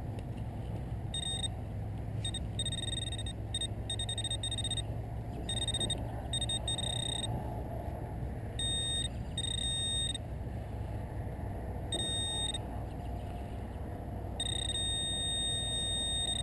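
Metal detector's audio tone beeping on and off irregularly as the coil sweeps over a target: a high steady tone in short beeps of varying length, the longest near the end.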